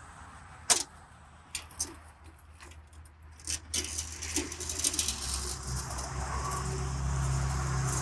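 Metal tools clinking and rattling as they are handled: one sharp click about a second in, a couple of lighter clicks, then a run of clinks; a steady low hum comes in after about five seconds.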